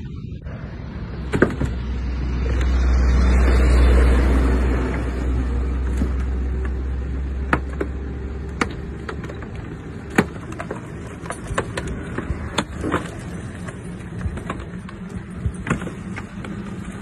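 A heavy vehicle's engine rumbling, swelling to its loudest about four seconds in and fading out by about nine seconds. Scattered sharp knocks and clanks come through the whole stretch.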